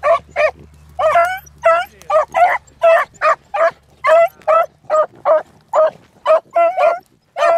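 Beagle baying on a rabbit's scent line in short, rapid barks, about two to three a second.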